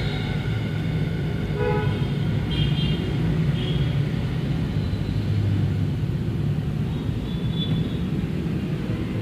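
Background road traffic: a steady low rumble, with a vehicle horn honking briefly about one and a half seconds in and short higher toots a second or two later.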